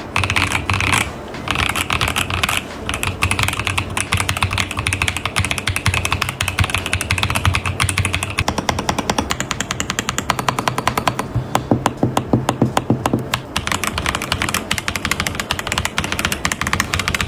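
Rapid typing on an Essential75 keyboard: a dense, steady run of key clacks.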